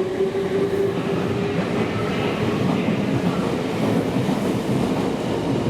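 A Meitetsu electric train moving along the platform with a steady, loud rumble and wheel clatter. A motor tone, rising slightly, fades out about a second and a half in.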